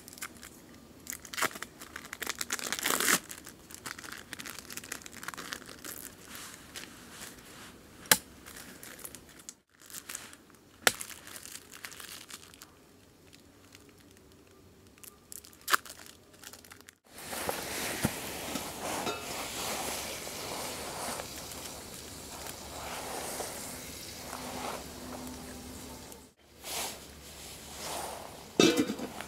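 Packaging crinkling and tearing as it is opened and handled, with a few sharp knocks. About halfway through, a steady hiss starts and runs for several seconds.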